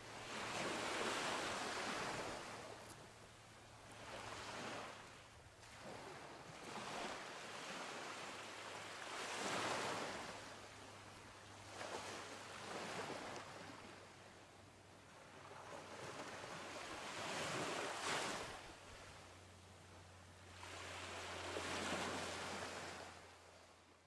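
Small waves breaking and washing up on a sandy beach, the surf swelling and ebbing every few seconds, with a faint steady low hum underneath. The sound fades out at the end.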